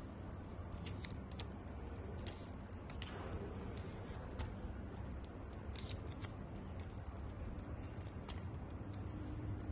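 Scissors snipping in an irregular series of short, sharp cuts, cutting tape away from an e-bike's wiring, over a steady low hum.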